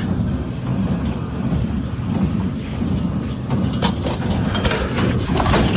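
Farm machinery running with a steady low engine rumble, with a few sharp rattling clicks about three and a half seconds in and again near the end.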